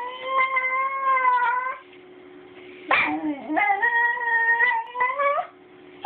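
Basenji puppy vocalizing in two long, wavering, yodel-like calls instead of barking, the second starting about three seconds in. Each ends with a brief rise in pitch.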